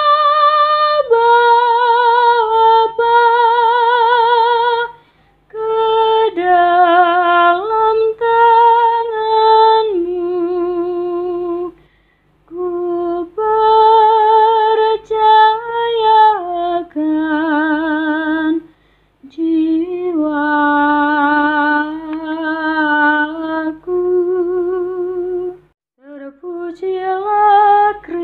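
A single high voice singing a slow, unaccompanied psalm-refrain melody with wide vibrato, in phrases broken by short pauses for breath.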